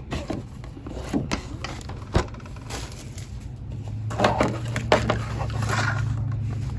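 Cardboard and plastic packaging of a DVD box set being handled: a few light clicks and knocks, then denser rustling and sliding about four seconds in as items are pulled out.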